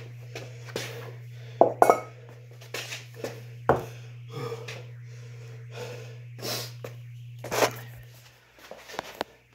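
Sharp clinks and knocks of metal gym equipment being handled, between a few breathy puffs, over a steady low hum that stops near the end.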